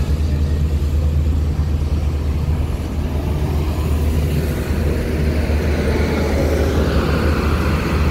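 Tour coach driving past close by, with a steady low engine drone; its noise grows fuller a couple of seconds before the end.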